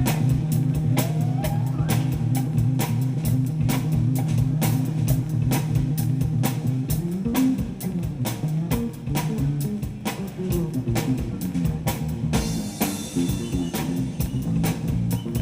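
Rock band playing live: guitar and drum kit over held low notes, with a steady beat. A cymbal wash comes in about three-quarters of the way through.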